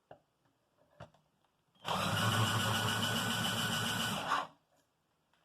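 Cordless drill with a nearly dead battery running for about two and a half seconds as it spins the ceiling-fan generator, then cutting out.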